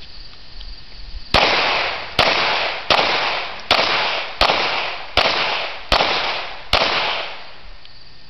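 A .22 rimfire semi-automatic pistol fired eight times at a steady pace, about one shot every three-quarters of a second. Each sharp crack is followed by a trailing echo.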